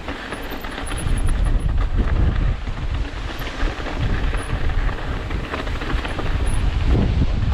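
Strong gusting wind buffeting the camera microphone in a heavy, uneven low rumble. It grows louder about a second in and stays loud.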